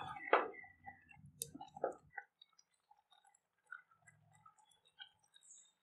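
Metal ladle stirring thick lentil kootu in a stainless steel pot, with a few clinks and scrapes against the pot in the first two seconds. After that only faint scattered pops and clicks.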